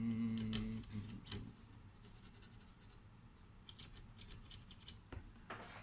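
Small metal clicks and scrapes of a screwdriver tip touching the power-switch pins of a bare motherboard to short them and start it, in a few short clusters. A brief low steady hum sounds in the first second.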